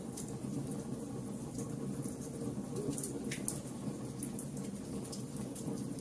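Fire burning, with scattered sharp crackles and pops over a steady low rushing noise.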